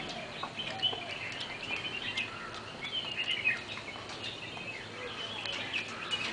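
Birds chirping and twittering, many short high calls overlapping, with scattered small clicks.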